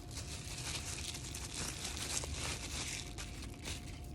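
Packaging crinkling and rustling as it is handled, a dense run of small crackles.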